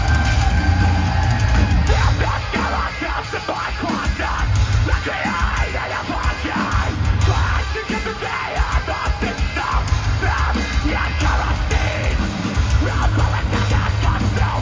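Live heavy metalcore band: distorted, heavy guitars, bass and drums played loud, with the vocalist screaming over them.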